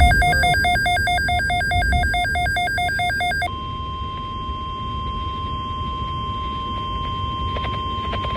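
Emergency alert tones. A rapid electronic warble switching between two pitches about six times a second cuts off after about three and a half seconds. A single steady high tone follows, the NOAA Weather Radio warning alarm tone, with a low rumble underneath.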